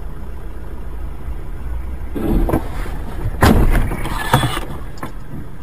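Steady low rumble of a vehicle running, with a swell of noise about two seconds in and a loud, sudden burst of noise about three and a half seconds in, lasting roughly a second.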